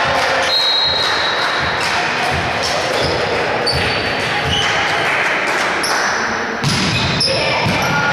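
A volleyball thudding on a hall floor and being struck, with players' voices, over several seconds; a sharper hit comes about six and a half seconds in.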